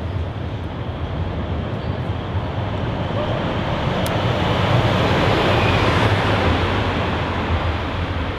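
A train passing on the steel elevated viaduct overhead: a heavy, steady rumble that swells to its loudest past the middle and eases a little toward the end. A single lighter click about four seconds in.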